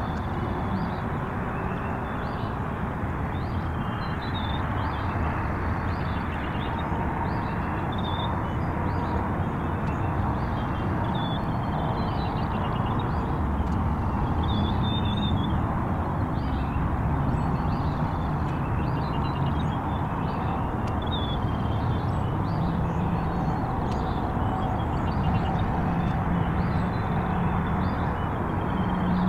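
Steady low rumble and hiss of outdoor background noise, with small birds chirping high over it again and again.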